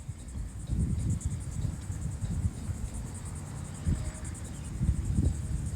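Crickets chirping in a steady, fast-pulsing high trill, over low rumbling noise.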